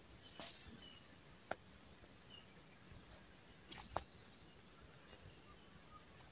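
Near silence: faint background hiss with a thin steady high tone and a few soft, short clicks.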